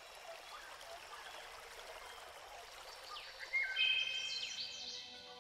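Outdoor ambience of birds calling over a steady hiss, with a burst of rising and falling whistled sweeps and short held notes about three and a half seconds in. Music comes in near the end.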